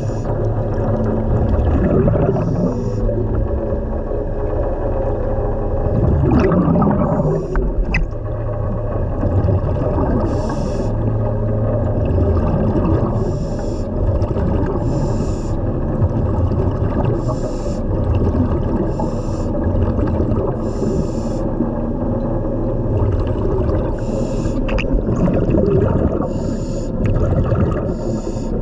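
Underwater recording of a diver's breathing: short hissing, bubbling bursts every one to three seconds over a steady low rumble of water.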